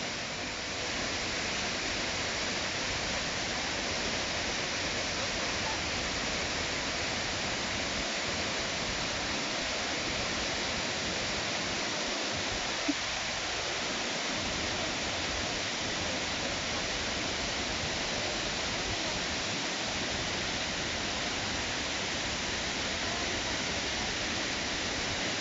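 Shiraito Falls waterfall, a steady, even rush of falling water. A single short click about halfway through.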